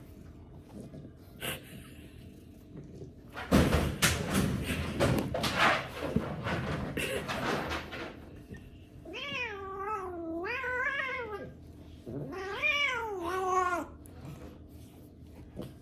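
Hungry domestic cat giving two long, wavering meows in the second half. Before them comes a few seconds of loud, scratchy rustling noise.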